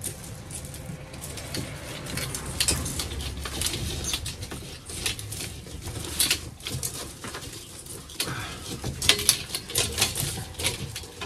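Bundle of electrical cables being handled and tugged through a hole in a plasterboard ceiling: irregular rustling and scraping with scattered sharp clicks and light knocks.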